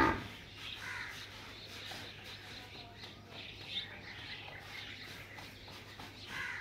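Faint background birds chirping and calling here and there over a low steady hum.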